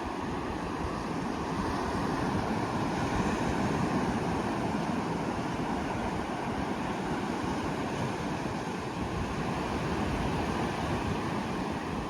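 Ocean surf washing onto a beach: a steady rushing noise that swells and eases slowly, with some wind.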